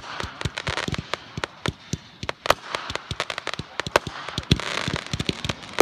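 Consumer fireworks going off: shots launching from the ground and bursting into crackling stars, heard as a dense, irregular run of sharp pops and crackles, many a second.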